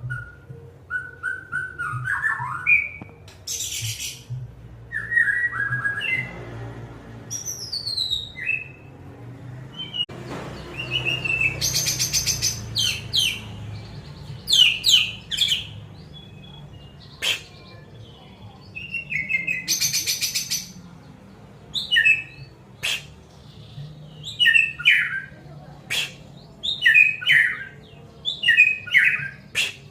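Caged songbird singing a varied song of quick chirps, whistled notes and pitch glides, broken by several short harsh, buzzy rattles.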